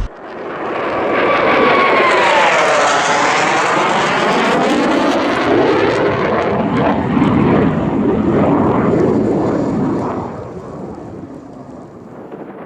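Cessna T-41D Mescalero's single piston engine and propeller passing close on final approach: the sound swells, its pitch drops as it goes by, then it fades away near the end.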